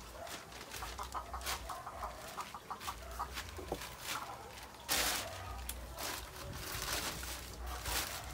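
A chicken clucking, a quick run of short calls between one and three seconds in. A black plastic tarp crinkles and rustles as it is walked on and gathered up, loudest in a burst about five seconds in.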